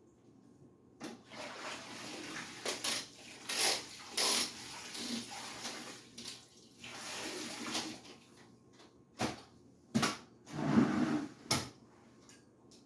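Kitchen cleaning noises: several seconds of splashing and clattering, then a few sharp knocks and clacks.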